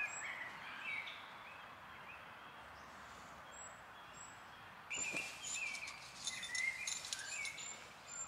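Small songbirds chirping in woodland, with rustling and light knocks from handling a lightweight tent and footsteps on leaf litter, busiest from about five seconds in.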